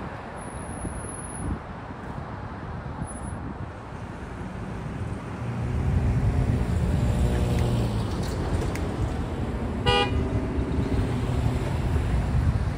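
Road traffic: cars driving through the intersection, engines and tyres growing louder about halfway through. A single short horn toot sounds about ten seconds in.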